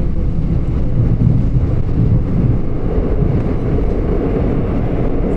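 Seoul Subway Line 3 train running along the track: a steady, loud low rumble of the moving train and its wheels on the rails.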